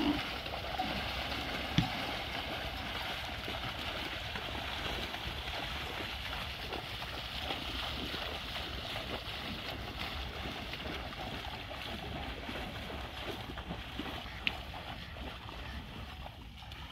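Steady sloshing and splashing of river water as a herd of water buffalo wades across a shallow river, with a sharp knock about two seconds in.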